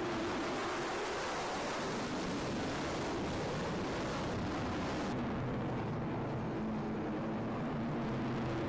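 Jet aircraft engine noise, a steady broad rush; the upper hiss drops away sharply about five seconds in.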